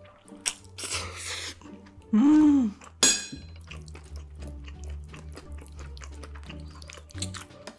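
Close-miked mukbang eating sounds: loud wet slurps of cheese-covered spicy instant noodles and a run of small sticky clicks and chews. Background music with a steady bass runs underneath.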